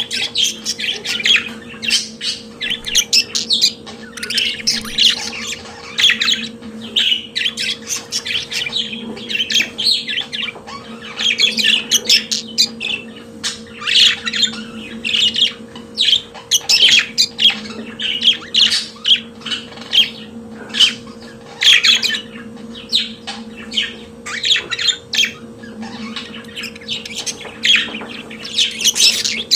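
Budgerigars chattering and warbling continuously, a dense run of quick chirps and squawky notes, over a steady low hum.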